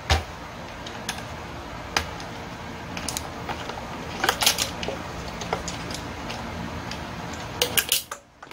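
Plastic clicks and knocks of a Husqvarna 435 chainsaw being handled and turned on a workbench, with clusters of rattling clicks about four seconds in and near the end, over a steady faint hum.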